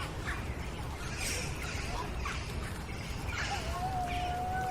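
Playground ambience: birds chirping in short repeated calls over a steady low background hum, with children faintly in the distance. About three and a half seconds in, one long, steady high call begins and holds.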